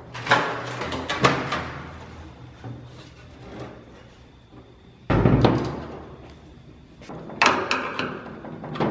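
Metal knocks and clanks of a Fox-body Mustang door being handled on a steel fixture table, with a heavy thud about five seconds in. Near the end, a run of sharp metallic clicks as the worn lower door hinge is worked with a screwdriver.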